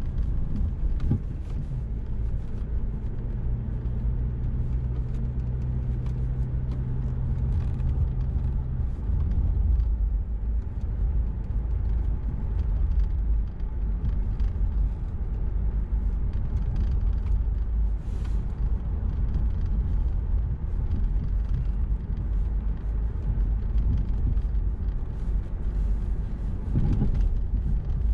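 Car driving at low speed: a steady low rumble of engine and road noise, with a low, steady hum from about two to nine seconds in.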